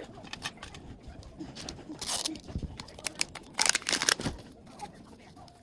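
Plastic toy packaging crinkling and tearing, with small clicks and taps of handling; louder rustles come about two seconds in and again at about three and a half to four and a half seconds.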